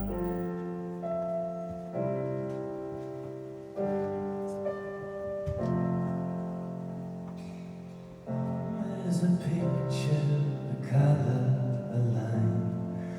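Piano playing slow, sustained chords, struck roughly every two seconds and each left to ring and fade. About eight seconds in, the music grows fuller and louder.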